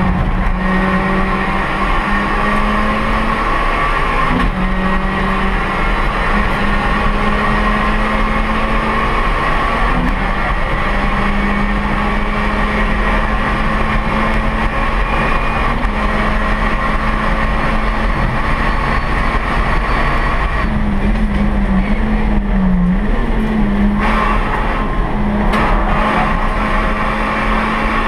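Honda Brio race car's 1.2-litre L12B i-VTEC four-cylinder engine running steadily at speed, heard from inside the cabin. The engine note holds level with brief dips in pitch every few seconds and a wavering drop about three-quarters of the way through.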